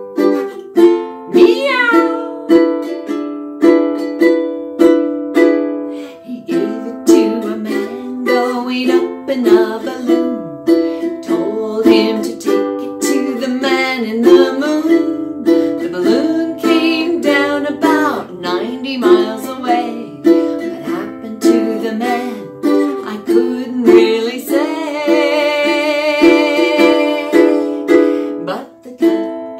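Ukulele strummed in a steady chord rhythm, with a woman singing along over it at several points.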